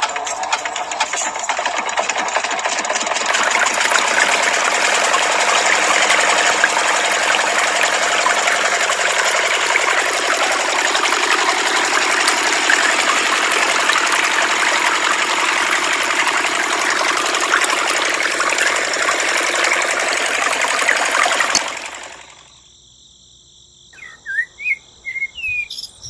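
A small motor in a miniature model engine runs steadily with a fast buzzing rattle, driving a belt-driven toy water pump whose jet splashes into a tank. It cuts off suddenly about 22 s in, and a few bird chirps follow near the end.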